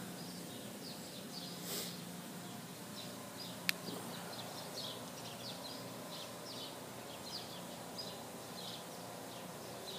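Birds chirping in short, repeated calls over a steady low hum, with a single sharp click a little under four seconds in.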